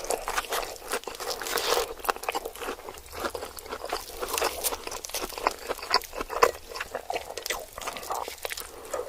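Close-miked chewing and crunching of cheese fingers, a steady run of small crisp crackles from the mouth.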